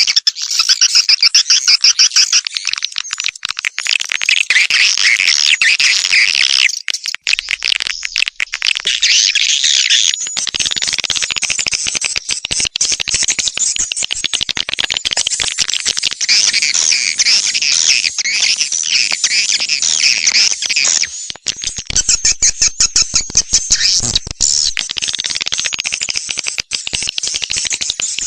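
Recorded swiftlet call sound: dense, continuous high chittering and twittering of many swiftlets, with a couple of brief dips. It is a lure track played from swiftlet houses to call wild swiftlets in.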